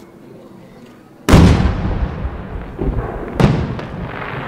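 Two aerial firework shells bursting overhead, each a loud boom followed by a long rumbling echo. The booms come about two seconds apart, and the first is the louder.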